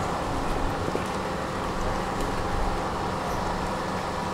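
Steady hum of a tram standing at a stop, its onboard equipment running, over an even wash of street noise, with a few faint ticks.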